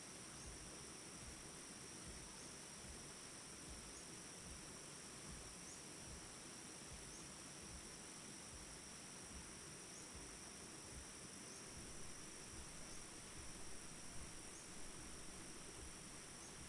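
Faint, steady chorus of crickets: a continuous high trill that never breaks, over a soft low background noise.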